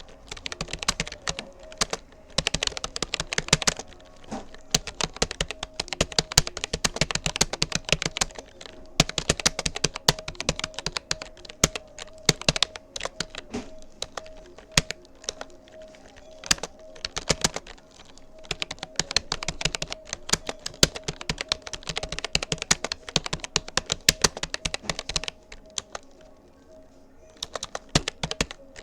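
Touch-typing on a Rapoo computer keyboard: a rapid, continuous run of key clicks, with a pause of about two seconds near the end before the typing resumes.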